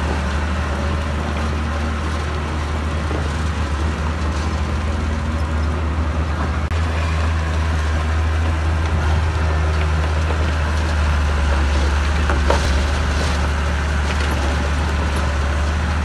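Heavy earthmoving machinery's diesel engine running steadily with a deep low drone, with one short sharp knock about three quarters of the way through.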